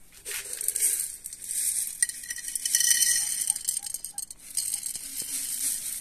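Dry mixed pigeon seed (wheat, maize, sunflower seeds) rattling and pattering as it is poured into a terracotta dish: a dense run of tiny clicks and hiss.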